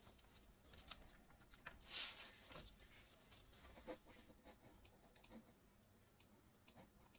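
Near silence, with faint small handling noises: a few light ticks and a soft brief rustle about two seconds in.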